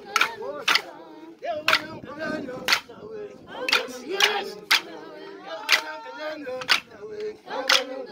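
A group of men and women singing a traditional song together, kept in time by sharp hand claps in a repeating pattern of three claps about half a second apart and then a one-beat pause.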